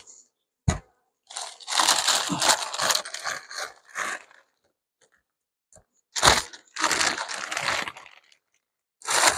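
Plastic sheet around a pollen patty crinkling and rustling as it is handled over the hive, in three bouts. A short knock comes just under a second in.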